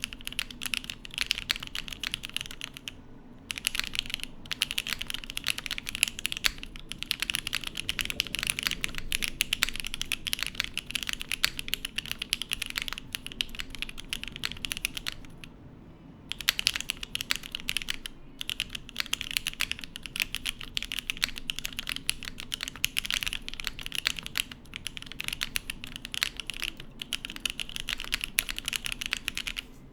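Fast, steady typing on a Matrix 8XV 3.0 mechanical keyboard with lubed and filmed Gateron Cap V2 Yellow linear switches in a top-mounted carbon fibre plate, without dampening foam, under GMK keycaps. The keystrokes stop briefly about three seconds in and again around the middle.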